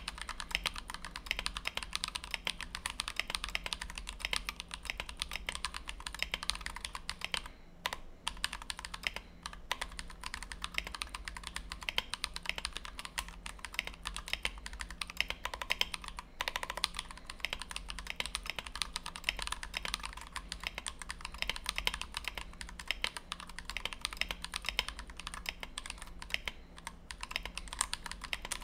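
Fast, continuous typing on a custom 60% mechanical keyboard: Everglide Dark Jade linear switches, lubed with Krytox 205g0 and filmed, on a brass plate in a Tofu 60 case, under PBT OEM-profile blank keycaps. There are short breaks in the keystrokes around eight and sixteen seconds in.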